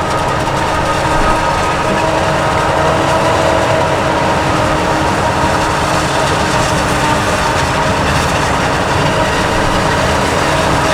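Heavy farm machinery engines running steadily, with a steady mechanical whine over the engine noise.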